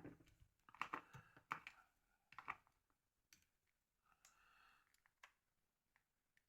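Faint clicks of a Nokia N73's keypad buttons being pressed: a quick run of clicks in the first few seconds, then a few more spaced out, with a brief soft rustle of handling about four seconds in.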